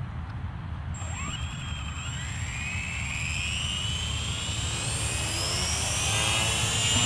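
Dynam E-Razor 250 electric RC helicopter spooling up on the ground: its motor and rotor whine starts about a second in and rises steadily in pitch and loudness as the main rotor spins up.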